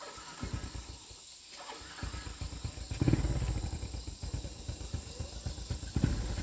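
A small engine running unevenly, with a rapid low pulsing, revving up about three seconds in and again near the end.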